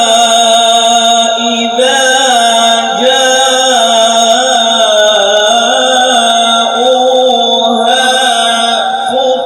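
A man's voice reciting the Quran in melodic tilawat, drawing out long ornamented notes that waver and bend in pitch, shifting to a new note about 2, 3 and 8 seconds in.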